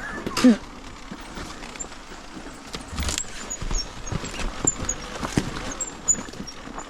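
Irregular knocks, scuffs and clatter of a trail motorcycle and its rider working over a rocky, branch-strewn track, with no engine running.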